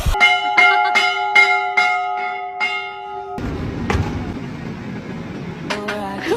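A bell rung in quick repeated strikes, about two and a half a second, for roughly three seconds, then stopping. A quieter stretch of noise follows.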